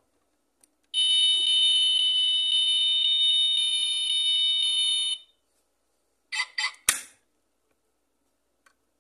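Diecast model car's built-in sound module playing a steady, beep-like electronic tone through its tiny speaker for about four seconds, set off by a press on the car. Three short bursts follow a second later, the last a sharp click.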